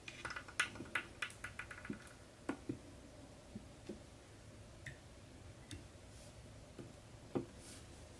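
Light clicks and taps of small metal tools and a hook being handled at a fly-tying vise: a quick run of clicks in the first two seconds, then scattered ticks and one louder knock near the end.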